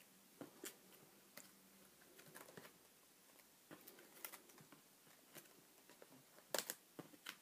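Faint crinkles and clicks of plastic binder pages being turned, with a few sharper clicks near the end.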